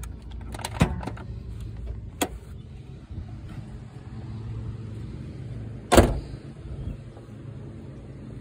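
A few light knocks and clicks in the first couple of seconds, then one loud thump about six seconds in, the RX-7's door being shut, over a steady low background hum.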